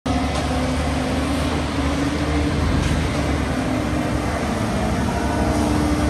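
Concrete mixer truck's diesel engine running steadily as the truck reverses, a low rumble with a held tone over it.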